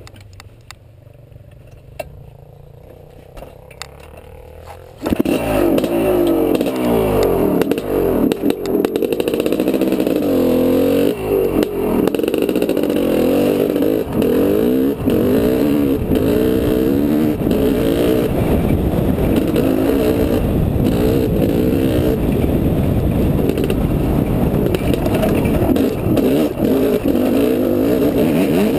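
Honda CR500 two-stroke dirt bike engine heard from a helmet-mounted camera. It is low for about the first five seconds, then comes in loud and runs under throttle as the bike rides, its pitch rising and falling with throttle and gear changes.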